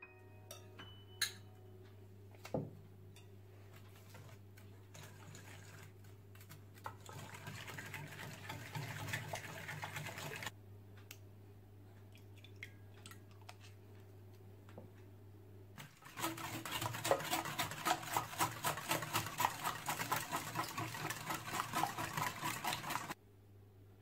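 Hand-baking sounds over a low steady hum: a few light clicks and soft stirring in a bowl. Then, from about two-thirds of the way in, a wire whisk beats a liquid mixture in a bowl with quick, rapid strokes for about seven seconds and stops suddenly.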